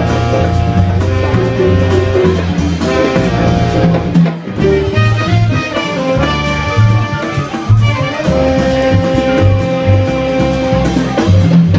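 Latin jazz combo playing live: trumpet leading over piano, bass, drums and congas, with a long held note from about eight seconds in.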